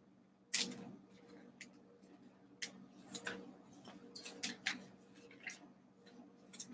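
Glossy trading cards and a clear plastic card sleeve being handled: a scatter of faint clicks and light plastic rustles, the sharpest about half a second in, over a low steady hum.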